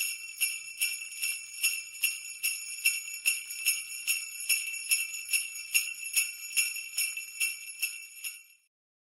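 Jingle bells shaken in a steady rhythm, about two to three shakes a second, stopping about eight seconds in.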